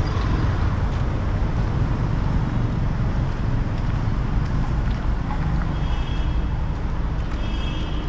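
Street traffic: a steady wash of passing motor vehicles, with wind rumbling on the microphone.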